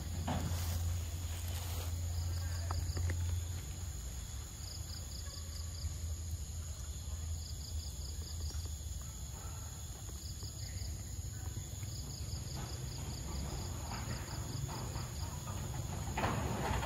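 Outdoor ambience: a high, pulsed chirping in short trills every few seconds over a steady low hum, with rustling near the end.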